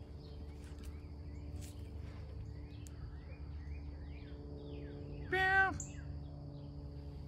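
Woodland ambience: a faint steady insect drone and small birds giving short rising chirps. About five seconds in comes the loudest sound, a brief high-pitched whine from an animal, under half a second long.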